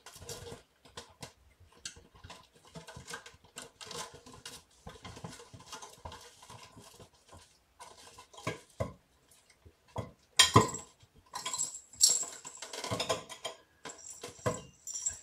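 Irregular knocks, clicks and rustling as hands handle cat toys on a floor covered in brown paper, with kittens scrambling about; the loudest clatters come a little past the middle. A faint thin high tone sounds near the end.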